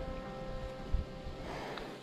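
Soft background music with long held notes that fade out about one and a half seconds in.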